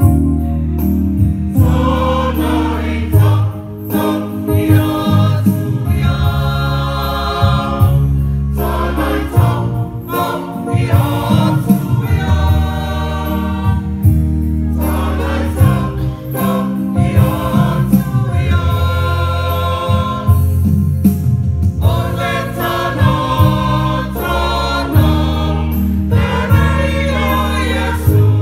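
Samoan church choir singing a sacred song with electronic keyboard accompaniment, the keyboard holding sustained bass notes under the voices.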